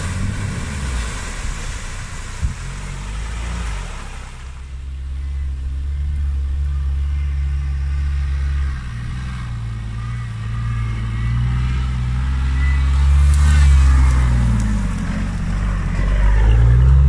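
Off-road 4x4 engines working hard in low gear. For the first few seconds water and mud splash as a vehicle ploughs through a puddle. Then a deep engine drone swells and eases as the vehicles climb, loudest near the end as one passes close.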